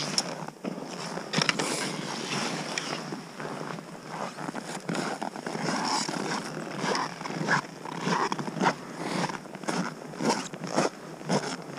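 Crunching and scraping in packed snow as skiers move along the track, with jacket and gear rustling and wind buffeting the camera microphone. Irregular scuffs come roughly once a second in the second half.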